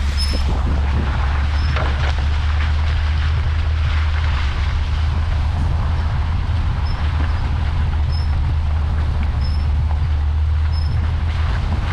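Vehicle driving, a steady low rumble of engine and road noise. A faint short high chirp repeats about once a second in the second half.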